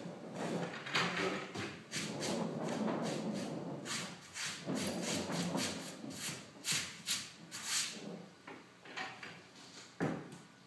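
Handling of a wooden battery-box lid: rubbing and scraping, a run of short sharp clicks and knocks, then a single louder knock near the end as the lid is swung open.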